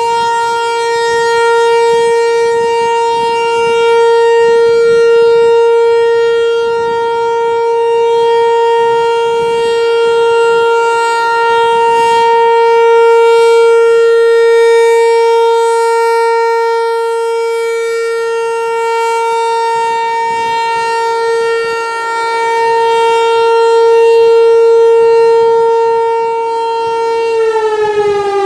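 ASC T-128 DC-powered rotating outdoor warning siren sounding a steady alert tone, its loudness slowly swelling and fading as the horn turns. Its pitch sags slightly, which the uploader takes as a sign its batteries will soon need replacing. About a second before the end it shuts off and the pitch starts to fall as it winds down.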